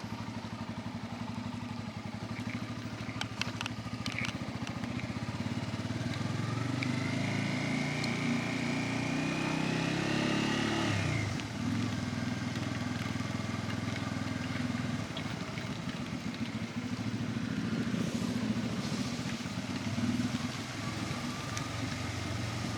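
Bajaj Pulsar N250's single-cylinder engine running under way. Its revs rise for a few seconds, drop suddenly about eleven seconds in at a gear change, then settle into steady cruising.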